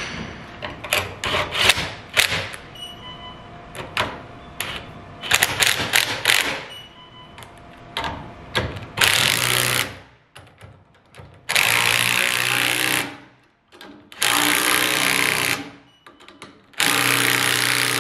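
Cordless impact driver running down the housing bolts of a Victaulic Style 102 installation-ready tee coupling. It starts with a string of short trigger pulls, then gives four longer hammering runs of about a second and a half each as the bolts tighten.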